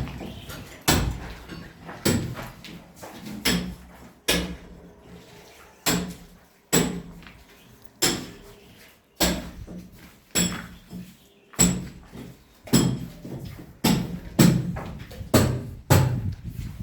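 Hammer striking over and over at an uneven pace, about one blow a second, each a sharp knock with a brief ring.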